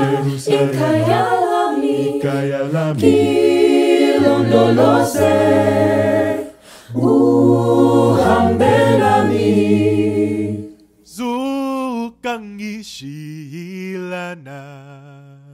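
A cappella choir of mixed voices singing in harmony over a deep sung bass line. About eleven seconds in, the full choir drops out and a single voice sings with vibrato over soft held backing notes, fading out at the end.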